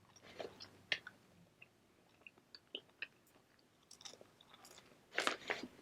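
A person chewing fast food close to the microphone: soft, scattered wet smacks and clicks of the mouth, with a louder run of chewing near the end.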